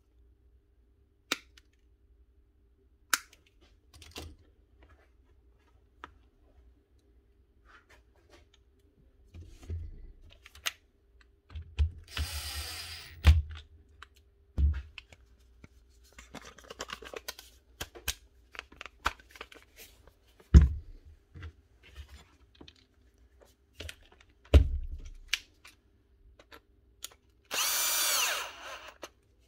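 Bosch cordless drill-driver running in short bursts, driving screws while a new lead is fitted to an angle grinder. Sharp snips of wire cutters come first, and several heavy knocks of tools set down on a workbench are the loudest sounds.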